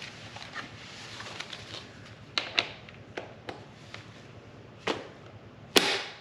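Scattered sharp clicks and knocks of hand tools working on the crankshaft damper bolt, about half a dozen, with a louder knock near the end.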